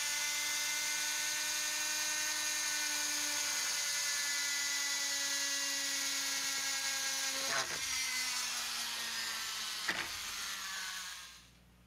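Corded rotary tool with a small bit drilling holes in a plastic model floor panel: a steady high-pitched motor whine that sags slightly in pitch under load, with two sharp clicks. It winds down near the end.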